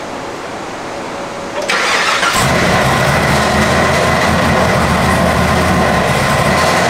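The supercharged 6.2 L LT4 V8 of a Chevrolet Camaro ZL1, fitted with a 2650 supercharger and running through the factory exhaust, is cranked and fires up about two seconds in, then settles into a steady idle with a high whine over it. Before it starts there is a steady hiss.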